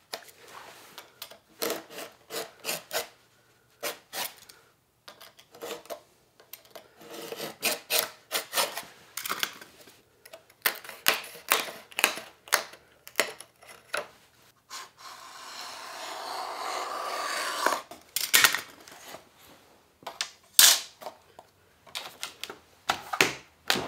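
Utility knife scoring and cutting through a sheet of Formica laminate along a metal square: a run of short, repeated scraping strokes. The hard mica top is cut first and the backing goes easily. About two-thirds of the way in comes one longer scrape lasting a couple of seconds, followed by a few sharper knocks and scrapes near the end.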